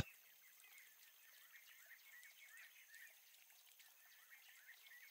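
Faint forest ambience: a light hiss with soft, scattered chirps.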